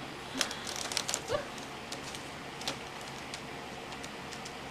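Small clicks and taps of a resin ball-jointed doll's head and joints being moved by hand, several in quick succession in the first second and a half, then a few scattered ones, over a faint steady hum.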